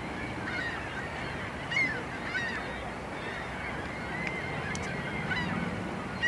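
Birds calling: many short, faint calls repeated at irregular intervals over a steady background hiss.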